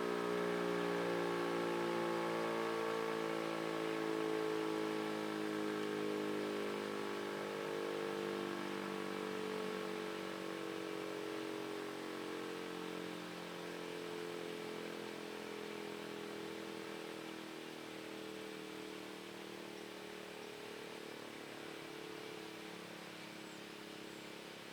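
Federal Signal Model 5 mechanical outdoor warning siren winding down after a short alert: its rotor coasting, the siren's tone slowly sliding lower in pitch and fading.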